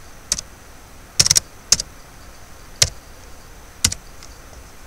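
Computer keyboard keystrokes and mouse clicks: seven sharp clicks, three in quick succession about a second in, then single ones spaced about a second apart.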